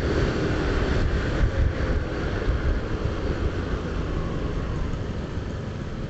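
Motor scooter riding along a street, heard from the rider's helmet-mounted mic: a steady low engine and road rumble with wind buffeting the mic, easing off slightly near the end.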